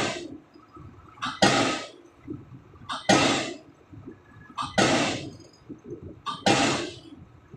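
Hydraulic pile-driving hammer with a 7-ton ram striking a precast concrete spun pile in a steady rhythm. There are five heavy blows, about one every 1.7 seconds, each preceded by a short click and followed by a brief ringing decay.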